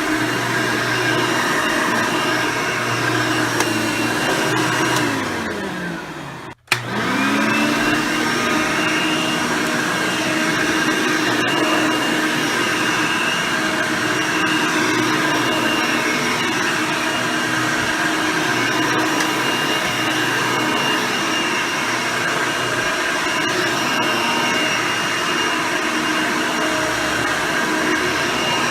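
Hoover Elite II 6.0 upright vacuum cleaner, with a 6-amp motor and nine-blade fan, running steadily. About five seconds in its motor winds down, cuts out with a click, then spins back up to full speed and runs on.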